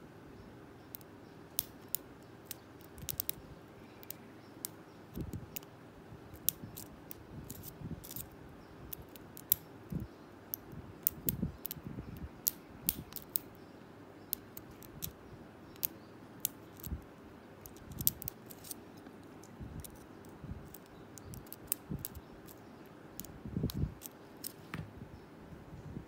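A lock pick and tension wrench working the pin tumblers of a Blossom 50mm padlock: irregular small metallic clicks and ticks as the pins are picked. A few soft low knocks from the lock being handled.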